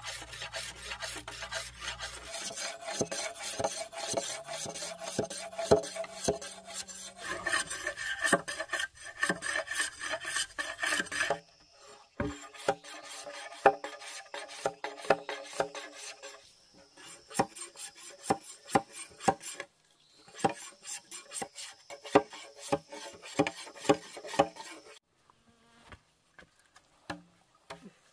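Bamboo being worked with a hand tool: fast, rhythmic rasping scrapes, several a second. About eleven seconds in they give way to slower, separate scraping strokes with short pauses, thinning to a few light clicks near the end.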